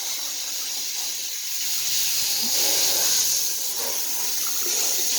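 Steady hiss of a water spray rinsing a dog's muddy coat.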